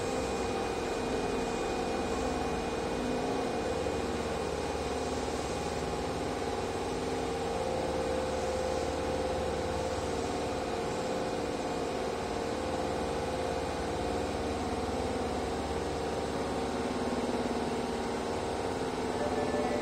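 Osaka Metro Midosuji Line subway train standing at the platform, its onboard equipment humming steadily with a few held tones.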